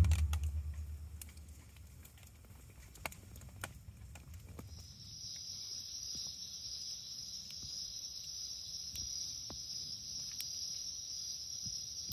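Insects trilling in one steady, high-pitched band that starts abruptly about five seconds in. Before that, the tail of background music fades out.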